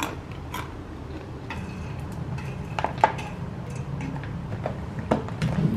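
Scattered light clinks and taps of cutlery against dishes, the sharpest about three seconds in, over a low steady hum.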